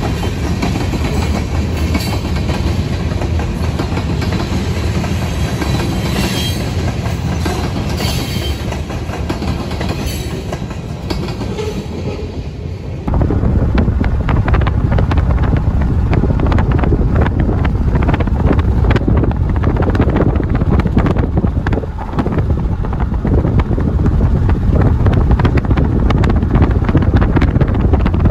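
Freight train passing close by: tank cars and covered hopper cars rolling over the rails, wheels clicking over rail joints. About halfway through the sound cuts to another passing string of covered hoppers, louder, with a heavier low rumble.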